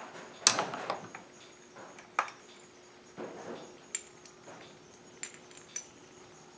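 Small metal chainsaw engine parts clinking and tapping as they are handled, a handful of separate sharp clicks with the loudest about half a second in.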